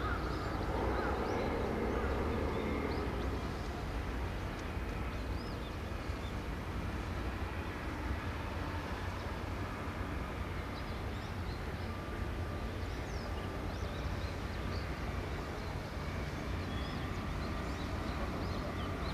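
Outdoor harbour ambience: a steady low rumble with short, high bird chirps scattered through it.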